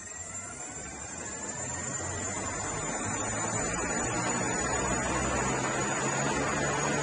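SkyDrive SD-03 flying car's electric contra-rotating propellers spinning up on the ground. A rising whine levels off in the first couple of seconds, under a rushing noise with a low hum that grows louder and steadies about four seconds in.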